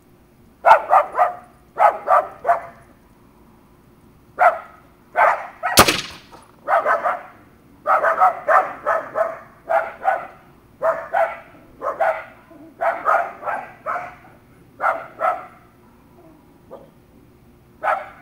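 A dog barking over and over in short runs of two to four barks. About six seconds in comes a single sharp crack: a shot from an AirForce Condor PCP air rifle at half power, with the pellet striking a water-filled 2-litre bottle.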